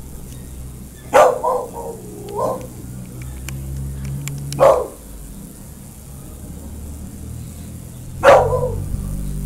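A dog barking three times: about a second in, near the middle, and near the end. The first bark runs on into a few shorter yelps.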